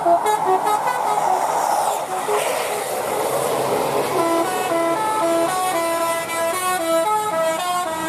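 Bus telolet horns, multi-trumpet air horns, playing quick stepped melodies. One tune ends about half a second in and gives way to the rush of a passing bus. From about four seconds in, another bus's horn plays a run of short notes jumping up and down in pitch.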